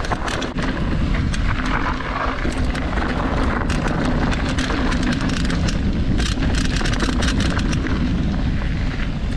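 Mountain bike running down a dirt trail at speed: a steady rush of wind and tyre noise with a faint hum, broken by frequent sharp clicks and rattles from the bike.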